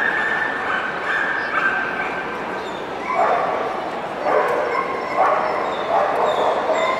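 A dog whining on a high, steady pitch, then yipping and barking over and over, about one bark a second from about three seconds in.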